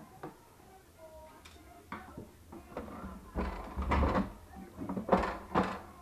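Plastic housing of a Jura E8 coffee machine being handled and moved: a few single clicks, then louder rattling and knocking of the plastic parts about halfway through and again near the end.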